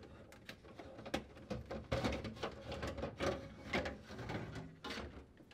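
Plastic crisper drawer of a KitchenAid refrigerator being worked forward and lifted off its slide rails: a run of plastic clicks, knocks and scrapes that stops near the end.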